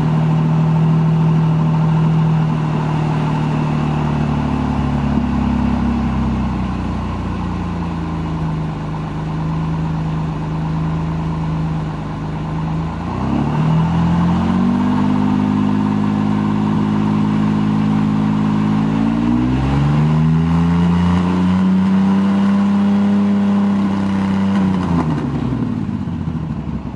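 Pontiac Fiero's engine and exhaust, fitted with a homemade compact stainless steel muffler in place of a straight pipe, running stationary for a sound-level test. It idles steadily, is revved up about 13 s in and held at 2000 RPM, is revved up again about 20 s in and held higher, then drops back toward idle near the end.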